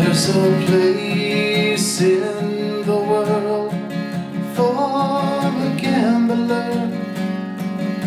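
Acoustic guitar strummed steadily, with a melody that bends in pitch above the chords for the first six seconds, then a change of chord.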